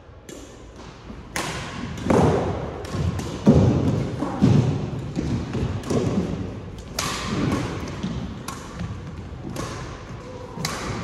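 Badminton doubles rally: a quick run of sharp racket-on-shuttlecock hits, about one every half second to a second, with heavier thuds of players' feet on the court, loudest a couple of seconds in.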